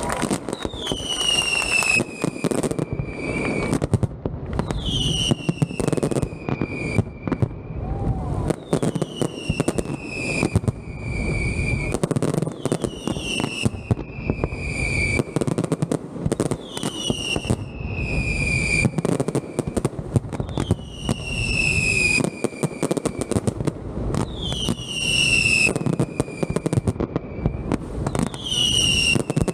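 Fireworks display: continuous crackling and bangs of shells and firecrackers. A high whistle falls in pitch over two to three seconds and repeats about every four seconds.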